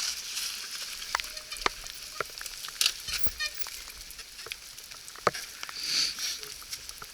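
Steady rain hiss with scattered sharp ticks of drops landing close by.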